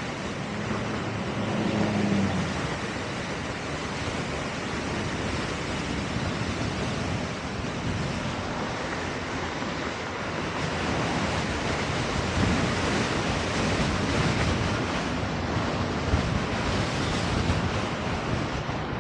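Wind rushing over the microphone as an Extreme Bull Commander GT Pro electric unicycle rides along the street, an even noisy rush with a faint hum from its motor in the first couple of seconds.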